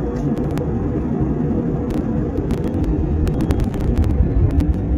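Aircraft cabin noise: a steady low rumble of engine and airflow, with scattered faint clicks.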